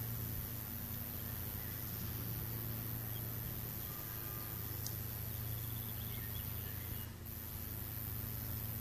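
Quiet open-field ambience: a steady low hum and hiss, with a few faint short distant bird calls about four to six seconds in.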